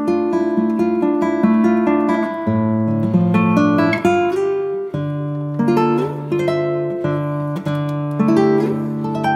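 Background music on plucked acoustic guitar: chords picked and strummed, changing every second or so.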